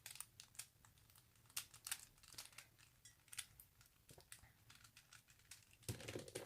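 Faint, irregular plastic clicks of a speed cube being handled and twisted, with a few sharper clicks near the end.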